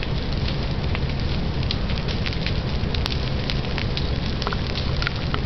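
A tree torching in a prescribed fire: flames running up through its branches and crown with a steady rush, dotted with many sharp crackles and pops.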